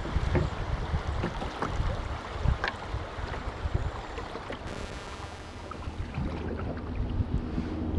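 Canoe paddling on a river: water splashing and sloshing around the paddle and hull, with scattered short knocks of the paddle against the canoe.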